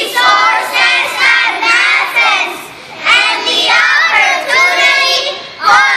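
A group of young children singing together, phrase after phrase with short breaks between.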